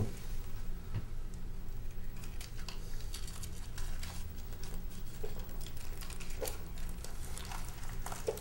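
Room tone with a steady low hum, and scattered faint clicks and rustles of movement and handling.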